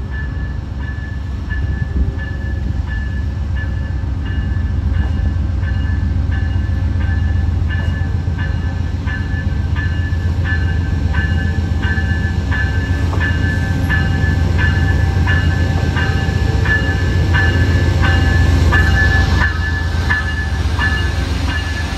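Amtrak GE P42DC Genesis diesel locomotive arriving slowly and passing close by, its diesel engine rumbling and its bell ringing about twice a second. The engine grows louder as it nears and drops off suddenly as the cab goes past, near the end.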